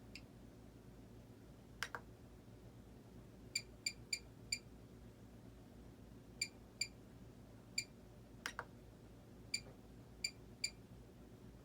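Short electronic beeps from a radio-control transmitter as its buttons are pressed, about ten in irregular clusters, with two sharper clicks about two seconds in and near the middle.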